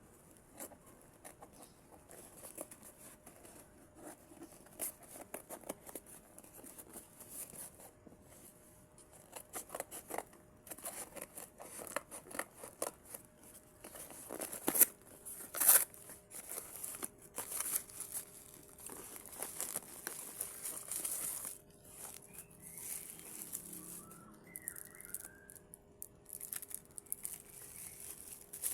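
Packaging being unwrapped by hand: plastic crinkling and tearing, with many irregular rustles and clicks and two sharper, louder snaps a little past halfway.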